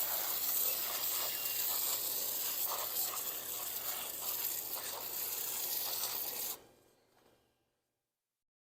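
Foaming coil cleaner hissing and crackling as it is applied to an air conditioner's outdoor condenser coil, a steady hiss that cuts off suddenly about six and a half seconds in.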